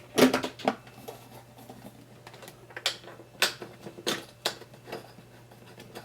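Electricity meter cover being fitted back over the meter: a quick cluster of clicks and knocks at the start, then about five single hard clicks spaced roughly half a second apart as it is seated and locked in place.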